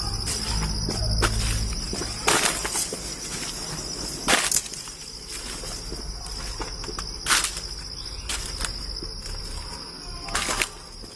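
Insects buzzing in a steady high-pitched drone, with four sharp clicks or knocks a few seconds apart standing out above it.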